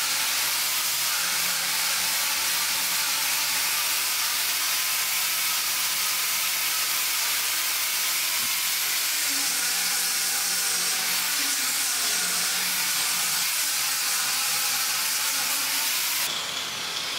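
Angle grinder fitted with a sanding disc sanding the wood of a curved stair handrail, a steady high hiss with a low motor hum. It eases near the end.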